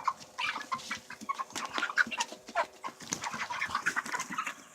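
A flock of five-week-old broiler (meat) chickens peeping and clucking busily over one another as a feeder is lowered to them.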